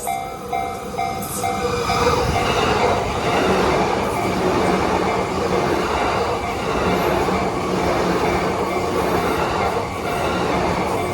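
Japanese level-crossing warning bell ringing in a steady two-tone ding at about three strikes a second. About two seconds in, a train passes over the crossing close by and its wheel and rail noise covers the bell.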